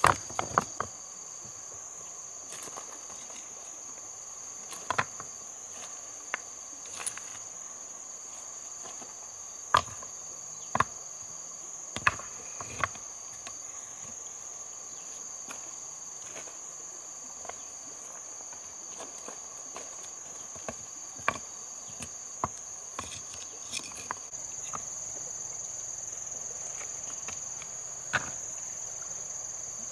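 Steady, high-pitched drone of an insect chorus, with scattered sharp knocks and clicks of handling or wood.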